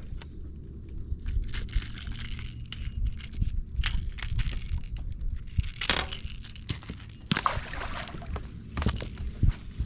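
Irregular knocks, clicks and brief hissing bursts over a steady low rumble: handling and tackle noise in a fishing boat.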